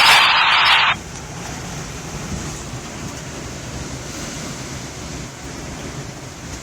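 A scanner radio's loud hiss cuts off about a second in, leaving a steady rush of storm wind and heavy surf.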